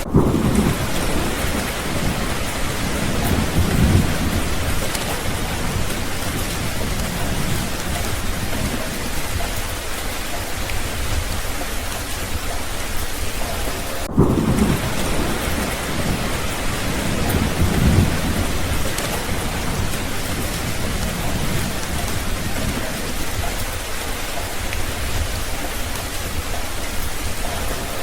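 Steady heavy rain falling, with low rolls of thunder swelling and fading several times, near the start, around four seconds in, about halfway and again a few seconds later.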